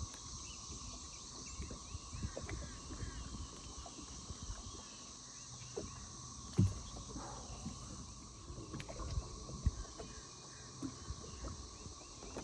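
Insects droning steadily in high, even tones with repeated short chirps over them, and scattered dull knocks and thumps from handling in a boat, the sharpest about a third and two-thirds of the way through.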